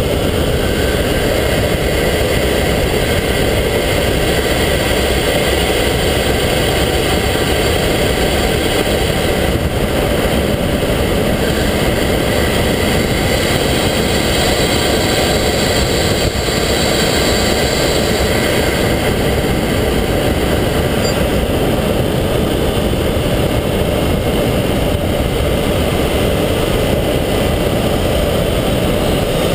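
Subaru Forester XT's turbocharged flat-four engine running steadily, heard up close from inside the engine compartment.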